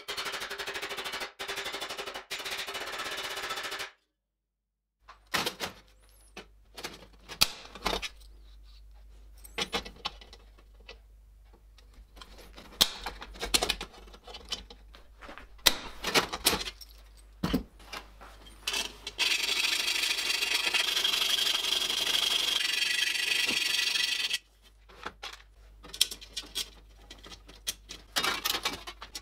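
Hand metalworking on a thin stainless-steel breastplate: rapid hammering on the plate's edge for the first few seconds, then, after a short break, scattered clicks and knocks of hand tools on the sheet. A steady noise runs for about five seconds past the middle.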